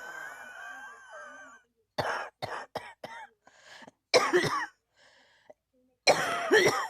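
A person coughing in fits: a quick run of four short coughs about two seconds in, then two harder, longer coughs.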